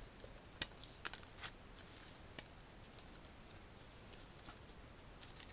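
Faint scattered clicks and light rustling from handling a telescoping landing-net handle as it is twisted and extended, dying away to near silence about halfway through.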